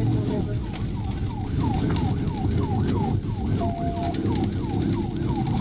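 Police cruiser siren cycling in quick falling sweeps, about three to four a second, over the cruiser's engine and road noise.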